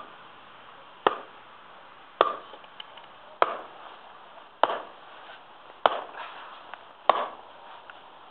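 Small hatchet-sized axe (Prandi Yankee, 600 g head) chopping into a wooden log on a stump: a steady run of sharp blows, about one every 1.2 seconds, each a crisp woody chop with a short ring after it.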